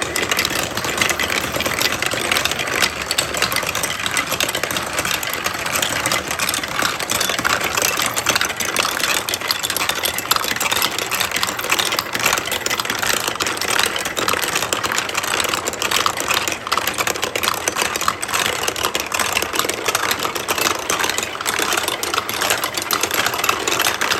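Glass marbles rolling and clattering down a plastic building-block marble run: a steady, dense rattle of many small clicks.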